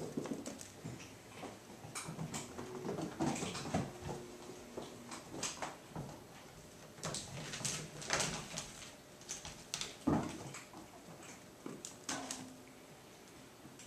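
Kittens scampering and tussling around a metal exercise frame: irregular patters, scuffs and light knocks, with one louder thump about ten seconds in.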